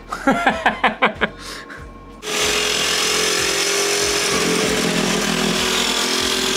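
Handheld electric grinder starting about two seconds in and running steadily against the welded metal bars of a jet boat's intake grate, its pitch dipping slightly as it bites into the metal.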